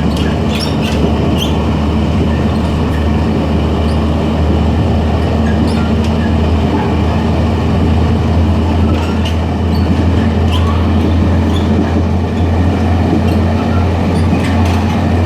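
Ride noise in the gangway between cars of a moving DR3000-class diesel multiple unit: a loud, steady low drone from the diesel drive and running gear, with scattered light clicks and rattles from the car connection throughout.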